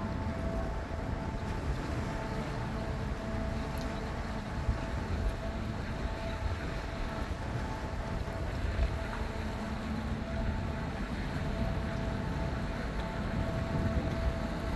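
Steady low rumble and machinery hum of the cruise ship Carnival Sunrise as it comes alongside the pier, with faint steady tones that fade in and out over the rumble.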